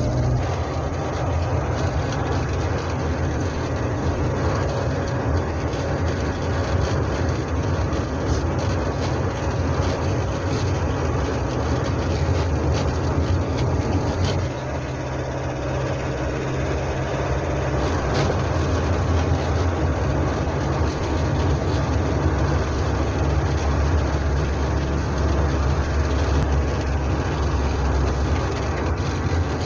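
Hillman Super Minx's four-cylinder engine and road noise heard from inside the cabin while driving: a steady low drone over tyre hiss. The level dips slightly about halfway through and then builds again.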